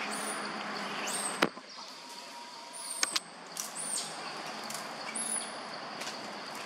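Forest ambience: short high-pitched chirps that fall in pitch repeat every second or two over a steady high insect hum. Two sharp clicks, the first the loudest sound, about a second and a half in and near the middle.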